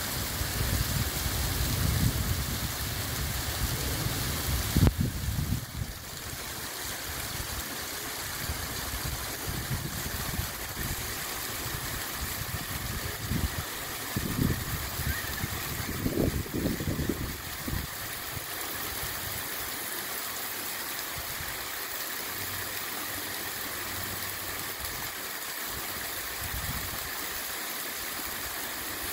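Small waterfall splashing steadily down a rock face into a stony pool, an even rushing hiss of falling water. Irregular low rumbles come and go through the first six seconds and again around the middle.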